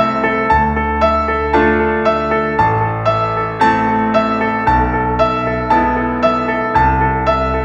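Background piano music: a gentle repeating figure of notes about twice a second over a changing bass line.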